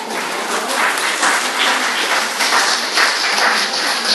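A group of young children clapping: a dense run of many overlapping claps that swells at the start and keeps going.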